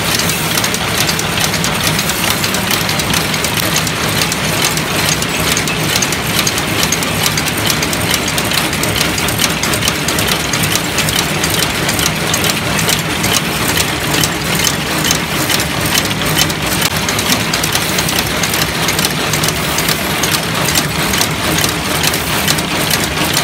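Automatic screw thread-rolling machine running steadily: a loud, dense, fast clatter of metal on metal over a low steady hum, with screw blanks rattling in the feed hopper.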